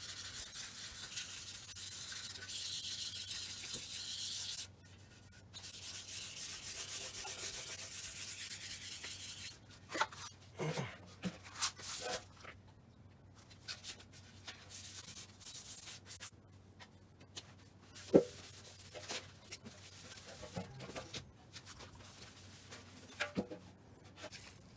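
Hand sanding the ivory-painted fuel tank of a Kawasaki 250TR with wet waterproof sandpaper, flattening dust specks in the colour coat before the clear goes on. Long continuous strokes for about the first nine seconds, with a short break near five seconds, then shorter scattered rubs and knocks, with one sharp tap about eighteen seconds in.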